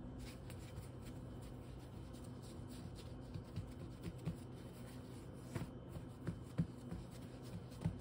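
Hands handling pizza dough on a floured countertop: faint rubbing and soft light taps, more frequent from about three seconds in, over a steady low hum.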